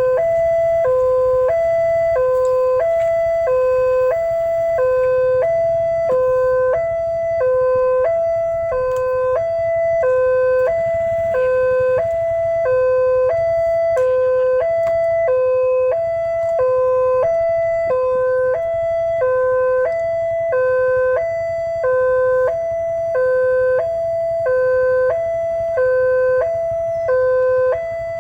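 Railway level-crossing warning alarm sounding continuously, switching between a lower and a higher tone about every 0.7 seconds.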